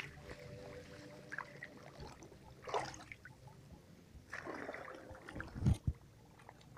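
Swamp water splashing and sloshing in a few separate bursts, with a sharp low thump near the end.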